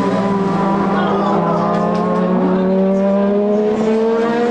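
Classic touring race car engines running at high revs. One climbs steadily in pitch as it accelerates, while another holds a steady note underneath.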